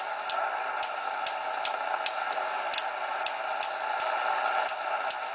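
Cobra 200GTL-DX CB radio's receiver hissing with band noise and no clear station, on a poor propagation day. Sharp clicks come through the hiss about two or three times a second.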